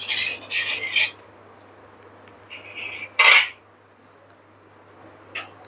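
Metal spoon scraping and stirring sugar and water in an aluminium kadhai over the gas flame, starting sugar syrup, for about the first second. A louder short metal clatter against the pan comes a little past three seconds in, and a faint click near the end.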